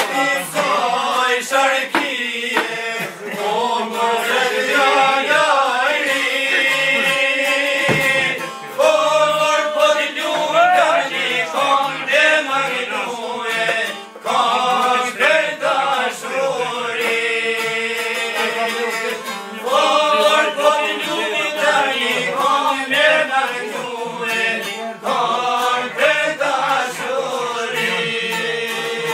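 Men singing a folk song in long, drawn-out phrases, accompanied by a plucked string instrument.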